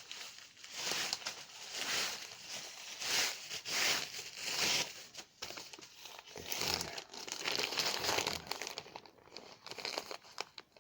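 Plastic bubble wrap crinkling and rustling in irregular bursts as it is pulled open and unwrapped by hand.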